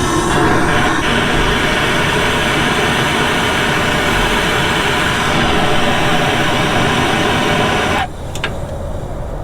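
Engine running steadily with a loud rushing noise over it. It stops abruptly about eight seconds in, and a few sharp clicks follow.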